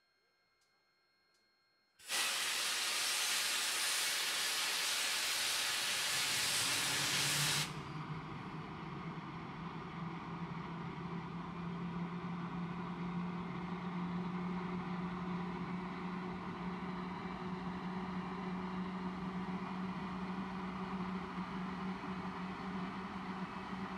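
English Electric Lightning's Rolls-Royce Avon jet engine starting: a sudden loud hiss of the AVPIN starter about two seconds in, lasting some five seconds, then the engine running on its own with a steady rushing noise and a low drone that rises slightly and holds as it spools to idle.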